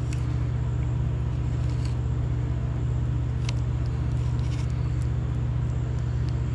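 A motor running steadily with a low, even hum, plus a few faint light clicks as a fillet knife works against a wooden board.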